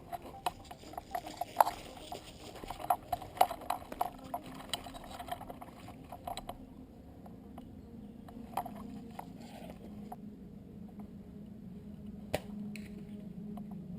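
Irregular sharp clicks and knocks, several a second, for about the first half. Then a low steady hum grows louder toward the end, with one sharp click near the end.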